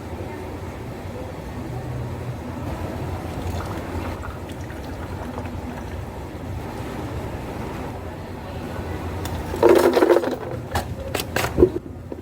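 Cafe counter work sounds: a steady low hum, then near the end a loud clatter and a few sharp knocks of things being handled.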